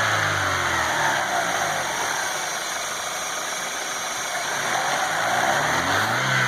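Chevrolet Aveo T250 petrol engine being revved: the revs fall away over the first couple of seconds and climb again near the end. A whistling, gurgling noise rides on it, which the owner traces to air being sucked in through the crankcase ventilation valve rather than to the cam phasers.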